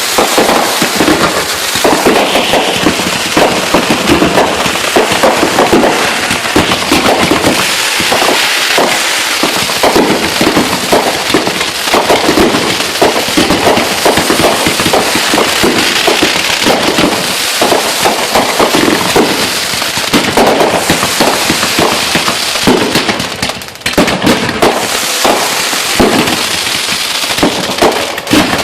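Fireworks grand finale: a dense, continuous barrage of bangs and crackling shells going off one over another, easing briefly once late on before resuming.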